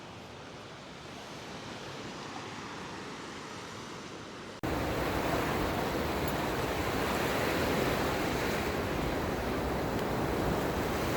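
Ocean surf: a steady wash of breaking waves. It starts quiet and thin, then about four and a half seconds in cuts abruptly to much louder, fuller surf with wind noise on the microphone.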